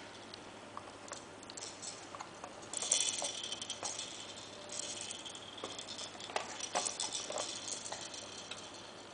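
Plastic baby toy block being handled and turned, its clear bead-filled dome clicking and rattling in bursts, loudest from about three to six seconds in.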